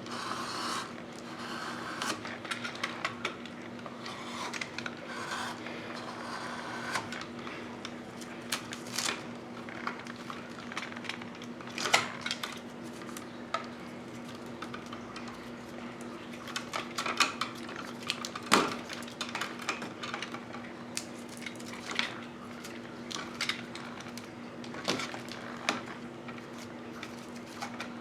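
Hand tools working electrical wire: irregular metal clicks, clinks and snips of lineman's pliers and wire strippers cutting and stripping wire while an outlet is wired up, over a steady low hum.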